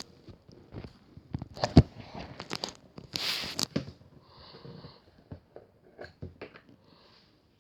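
Handling noises: a series of clicks and knocks, the loudest about two seconds in, with a short rustle about three seconds in, thinning out near the end.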